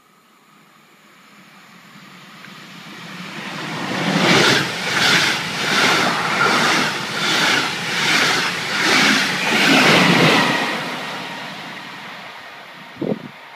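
Metronom double-deck passenger train passing through the station at speed. It swells in, then goes by as an even rhythm of pulses, about one and a half a second, as the coaches and their wheelsets pass, and fades away as it recedes. A brief sharp click comes near the end.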